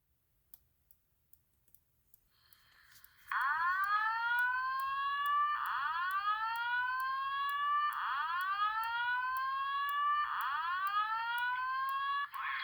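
Simplex voice-evacuation speaker sounding the slow whoop fire alarm tone: four loud rising sweeps, each a little over two seconds long, begin about three seconds in after a few faint ticks. The whoops stop near the end.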